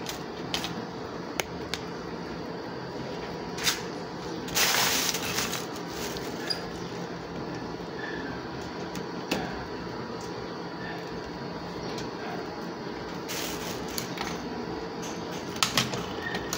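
Hands working electrical wires with pliers: scattered small clicks and snips, with a longer scraping rustle about four and a half seconds in and another near thirteen seconds, over a steady background hum.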